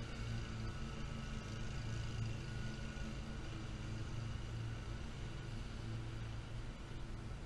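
Lawn mower engine running steadily with a low hum that swells and fades a little.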